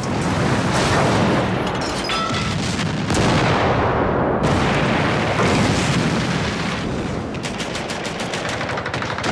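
Battle sound: dense, continuous gunfire and explosions, with a rapid run of machine-gun shots in the last couple of seconds.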